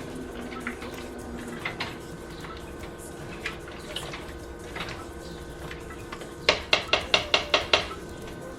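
Kitchen utensil clinking against a cooking pot, with scattered light clicks and then a quick run of about eight sharp taps near the end, over a steady hum.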